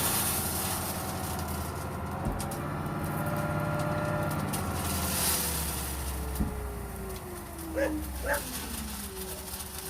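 Heavy dump truck engine running, its pitch falling slowly in the second half, with a brief hiss about five seconds in. A dog gives two short yelps near the end.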